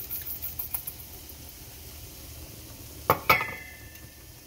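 Chicken pieces sizzling steadily in broth in a pan. About three seconds in come two sharp clinks, the second ringing on for a moment, as a utensil or container knocks against the pan.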